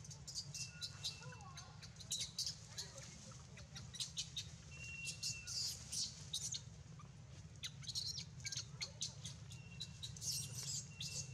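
Rapid, high-pitched chirps and squeaks in clusters, with a few short thin whistles, over a steady low hum.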